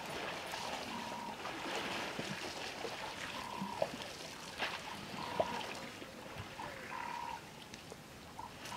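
Water trickling and sloshing as elephants drink, with a few sharp splashes or clicks. Over it, a short, level piping call from a small animal repeats every second or so, some notes dropping in pitch at the end.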